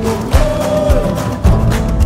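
Background music with a steady drum beat, about two beats a second, under held instrumental tones.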